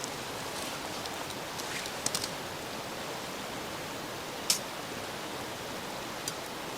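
Wood campfire burning: a steady hiss with a few sharp crackling pops, the loudest about four and a half seconds in.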